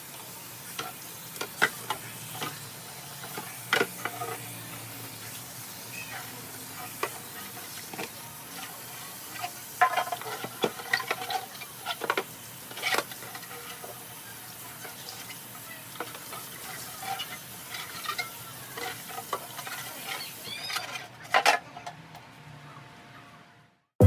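Kitchen cleaning sounds: scattered light clicks, knocks and clinks of containers and fridge parts being handled over a steady hiss. Near the end it fades away to near silence.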